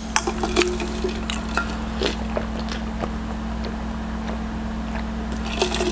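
Sparse small clicks and soft handling and mouth sounds as a tumbler is picked up and drunk from, over a steady low hum.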